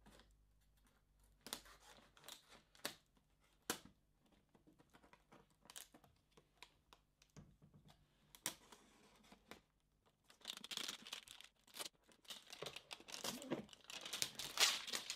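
Plastic shrink-wrap being torn and peeled off a cardboard box: quiet scattered crackles at first, then a denser run of crinkling and tearing about two-thirds of the way in.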